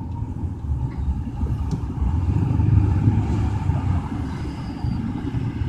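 Car cabin noise while driving at highway speed: a steady low rumble of engine and tyres on the road, swelling slightly about two seconds in.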